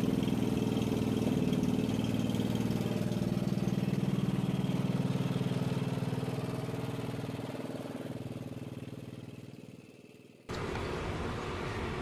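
Troy-Bilt TB30R riding mower's engine running steadily, then fading away over several seconds until it is gone. Near the end a different, quieter steady hum takes over.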